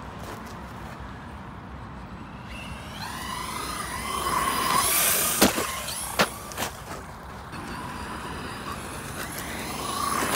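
Brushless electric RC car motor whining up in pitch as the car accelerates, starting a few seconds in, with three sharp knocks just after the loudest point. The whine rises again near the end.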